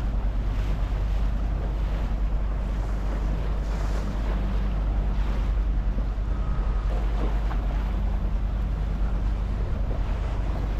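Tour boat's motor running steadily with a low hum, with water washing against the hull and wind buffeting the microphone.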